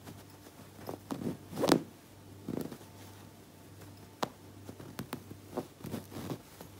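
Hands handling a fabric pillow and its crocheted cover while pushing a needle through it: irregular rustling and rubbing of cloth and yarn, loudest about two seconds in, with a few sharp clicks later on.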